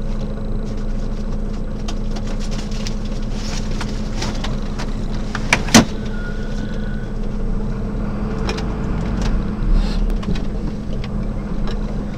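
Lorry's diesel engine running with a steady drone, heard from inside the cab while it crawls in slow city traffic. One sharp knock stands out about six seconds in.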